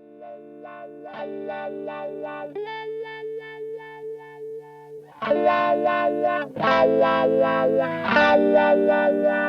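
Instrumental music: repeated chords over sustained notes, soft at first and louder from about five seconds in.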